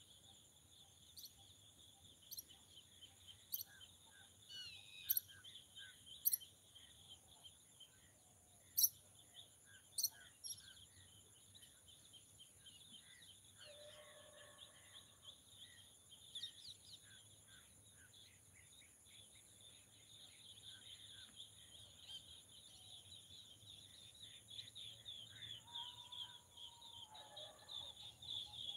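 A steady, faint, high-pitched chorus of insects, with a bird giving short sharp chirps about once a second through the first ten seconds. A couple of fainter calls come later.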